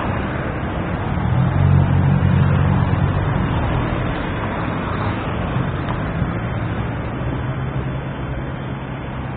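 Steady road-vehicle noise: a low engine hum under a broad rumble, swelling briefly about two seconds in and easing off slowly toward the end.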